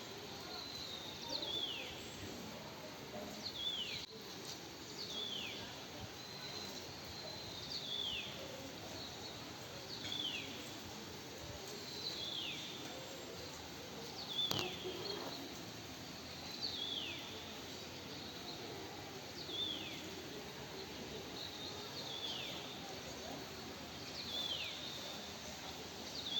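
An animal calling: a short high whistle that falls in pitch, repeated steadily about every two seconds over a steady background hiss.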